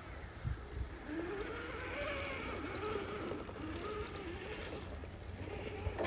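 Electric motor of a radio-controlled scale crawler truck whining, its pitch rising and falling with the throttle.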